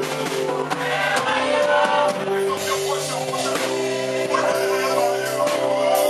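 Gospel worship music: voices singing over held instrumental chords, with percussion strikes.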